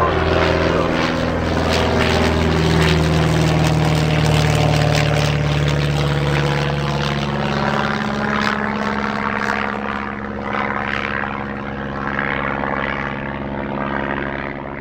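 Van's RV-7 light aircraft's piston engine and propeller passing overhead, the engine note dropping in pitch as it goes by and growing fainter toward the end as the plane flies away.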